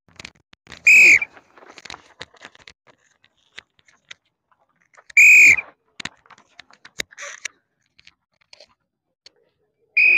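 A coach's pea whistle is blown in three short, shrill blasts about four to five seconds apart, the last at the very end. Each blast is the start signal sending off the next group of sprinters.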